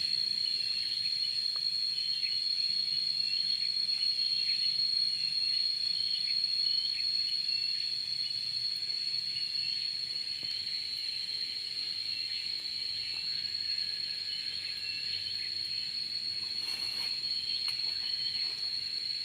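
Insects trilling in a steady high-pitched drone, with many short chirps over it and a brief scratchy noise near the end.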